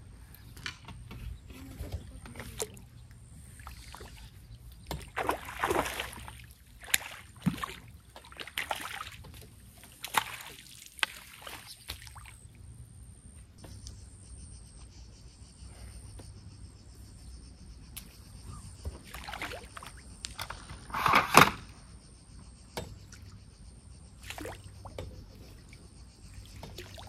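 A hooked sturgeon being played and netted at the water's edge: scattered clicks and knocks of the fishing reel and tackle, with bursts of water splashing. One loud splash about 21 seconds in is the loudest moment.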